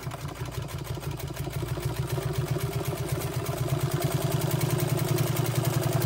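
Japanese-made Singer 15 clone sewing machine running steadily, its motor humming under a rapid, even clatter of needle strokes as a heavy-duty needle stitches through cowhide leather about 1 mm thick. It sews through without bogging down, a sign of a strong, freely running machine.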